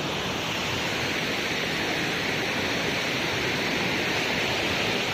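Waterfall cascading over rock: a steady rush of falling water.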